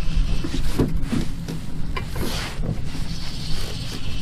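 Wind buffeting the microphone in a steady low rumble, with a few short scratchy sounds in the middle.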